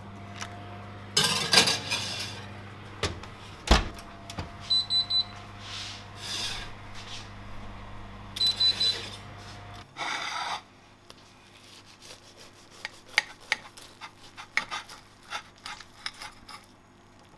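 A glass baking dish wrapped in baking paper is slid into a humming oven, with paper rustling, scraping and a sharp knock. Three quick electronic beeps sound twice. Then a knife cuts through the crisp baked potato roll on a plate with a run of light crunching clicks.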